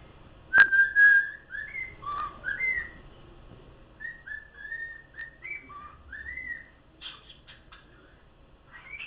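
Cockatiel whistling a tune: a run of short whistled notes, many sliding upward, with a couple of pauses, then a few short chirps near the end. A sharp click comes about half a second in, as the whistling starts.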